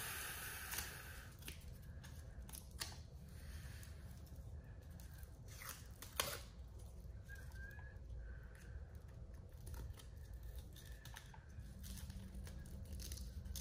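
Faint handling sounds of the protective backing being peeled off a battery tray's double-sided adhesive tape: soft tearing and crinkling with a few small clicks.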